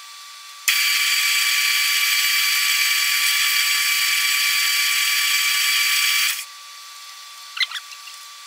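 Metal lathe running while a boring bar cuts the bore of an aluminium workpiece: a steady hiss with a whine that starts abruptly about a second in and stops after about six seconds, followed by a few light clicks.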